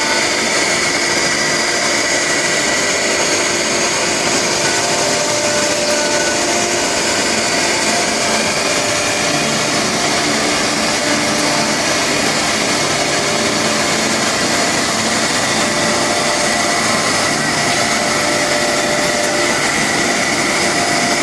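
CNC router running: a steady, even machine noise with a constant high whine, without pauses or sudden knocks.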